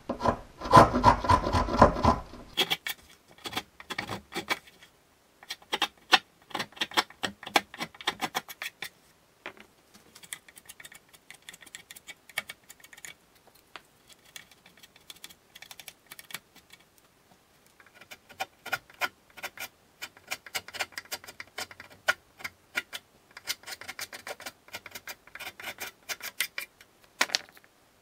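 Corner of a hand scraper gouging and scraping pine, digging out resin streaks that would bleed through paint. The scraping comes in bursts of short rasping strokes with pauses between, heaviest in the first couple of seconds.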